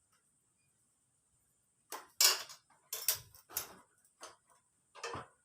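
Irregular metallic clinks and knocks of hand tools and engine parts being handled while a Honda Vario 150 scooter engine is taken apart. About six separate strokes start about two seconds in, the loudest a short clatter just after.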